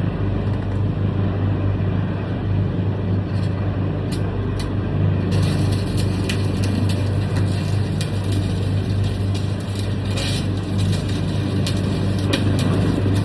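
A stick (arc) welder with a fresh electrode. Under a steady low electrical hum, a few short crackles come as the arc is struck about three to five seconds in. From about five seconds in, the burning rod gives a continuous sizzling crackle as the weld bead is laid.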